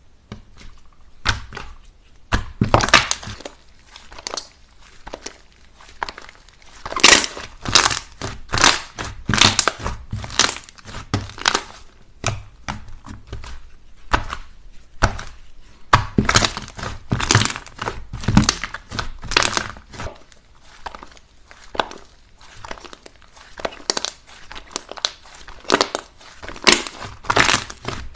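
Slime being squeezed and worked by hand, giving dense runs of crisp crackles and pops with a few brief lulls.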